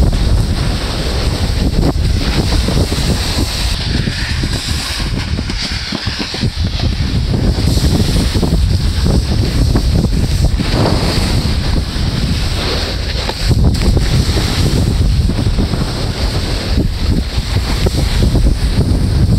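Wind buffeting the microphone of a camera carried downhill at speed: a loud, steady low rumble, with a hiss of sliding over snow.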